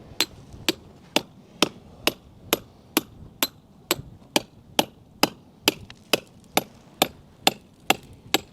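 Fence pole being hammered into the ground: a steady run of sharp blows, about two a second.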